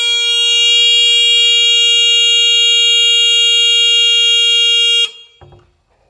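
12-volt 90 dB electric horn, switched on by a doorbell receiver through a relay, sounding one steady, really loud tone that cuts off suddenly about five seconds in. A couple of faint knocks follow.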